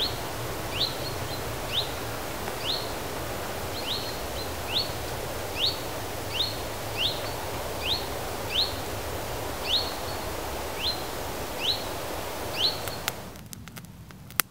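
A small bird calling over and over, a short falling chirp about once a second, over a steady hiss. Near the end the calls and the hiss stop suddenly, leaving a few faint clicks.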